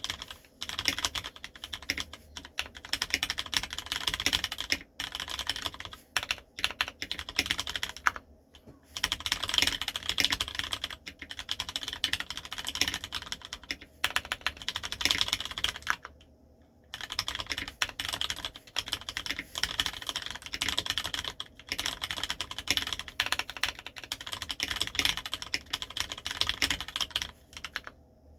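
Typing on a Leopold FC750R mechanical keyboard: continuous runs of keystroke clacks, broken by brief pauses about eight seconds in and again around sixteen seconds.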